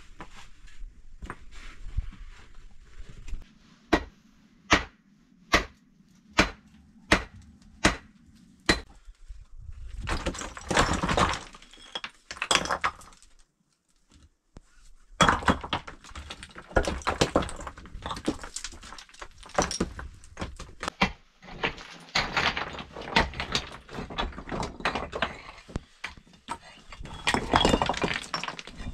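Loose rock rubble clattering and knocking as stones are pried loose and shifted with a hammer and by hand. Early on comes a run of about eight sharp, evenly spaced strikes; the rest is near-continuous rattling of stone on stone.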